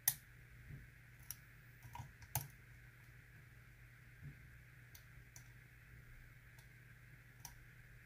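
Small, scattered metallic clicks of a hook pick and tension wrench working the pin stack of a Lockwood pin-tumbler cylinder, the loudest click right at the start, over a faint steady background hum.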